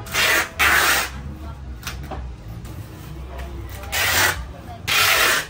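Packing tape being pulled off its roll and wrapped around a cardboard box: four short rasping rips, two in the first second and two more about four and five seconds in.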